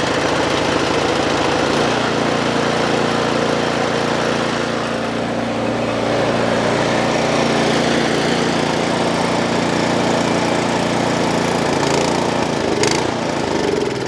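Cub Cadet snowblower's single-cylinder engine running steadily, settling to an even note about two seconds in, with a sharp click near the end. The engine runs only on choke and dies when taken off it, a sign of a carburetor fault.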